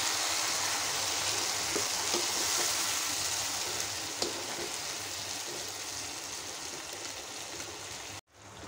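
Grated tomato and fried onions sizzling in hot oil in a kadhai, stirred with a perforated metal spoon that ticks against the pan a few times. The sizzle slowly gets quieter and cuts off abruptly shortly before the end.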